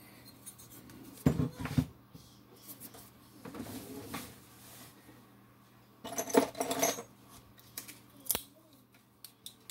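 Metal parts knocking and clattering on a workbench as an aluminium cylinder head is handled and set down, in a few short bursts with a single sharp click near the end.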